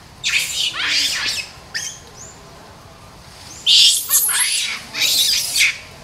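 High-pitched screechy animal calls in quick runs: a group in the first second, a couple of short ones, then another loud run from about three and a half seconds in.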